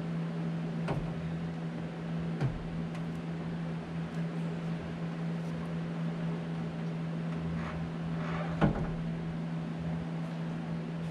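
Aluminum radiator being worked down into a car's engine bay for a test fit, with a few light knocks as it bumps against its mounts, the loudest about three-quarters of the way through. A steady low hum runs underneath.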